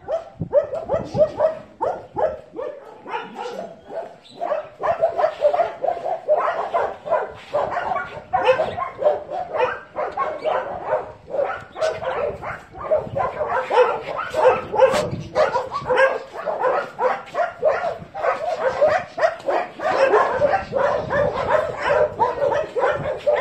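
Several dogs barking continuously, many short barks coming several a second and overlapping.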